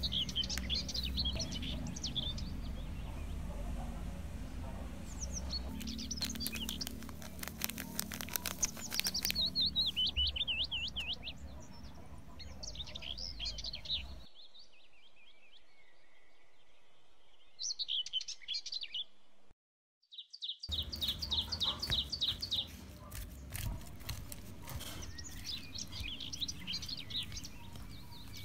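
Small birds chirping and trilling over and over in the background, with a low steady hum under them. Sharp clicks and scrapes come in clusters, the later ones from a metal spoon stirring in a glass bowl.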